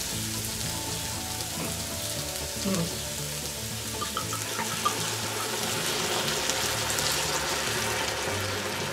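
Diced vegetables sizzling in a hot cast-iron Dutch oven, then white wine poured in from a bottle partway through, a running pour over the sizzle as the pot is deglazed.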